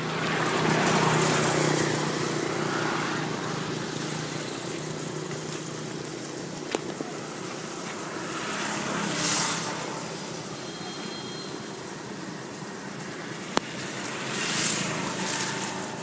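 Steady outdoor background noise that swells up three times, with two short sharp clicks.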